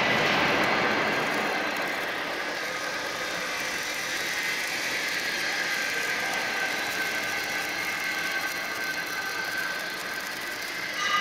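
Automatic wire-fed arc welding on a column-and-boom welding machine, running a steady hiss along the external seam of a rolled steel cement-mixer drum, over continuous workshop machinery noise with faint steady high tones.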